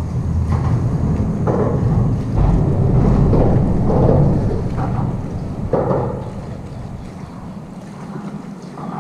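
Wind buffeting an action camera's microphone, a heavy rumble that eases off about six seconds in.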